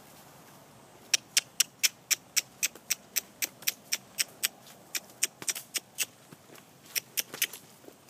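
A person clucking with the tongue to drive a horse on: a rapid run of sharp clicks, about four a second, starting about a second in and lasting some six seconds.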